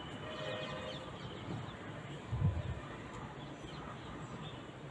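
Paper food wrapping rustling as it is folded over a plate, with birds chirping in the background and one low thump about two and a half seconds in.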